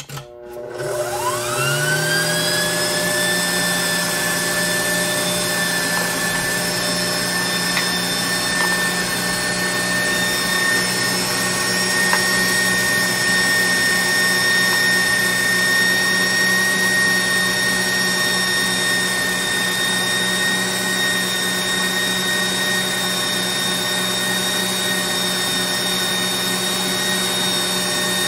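KitchenAid stand mixer motor switched on and spinning up with a rising whine, then running steadily while it drives the pasta press attachment, pushing fusilli dough through the die.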